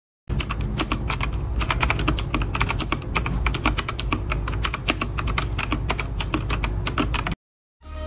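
Fast typing on a TERPORT TR95 mechanical keyboard with Outemu Cafe (brown) tactile switches: a rapid, dense clatter of key presses that starts just after the opening and stops abruptly near the end.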